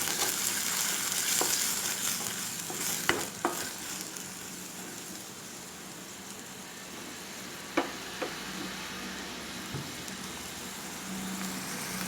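Shallots and green chilli frying in hot sesame oil in a pan: a steady sizzling hiss, with a few sharp clinks of the spatula against the pan as they are stirred.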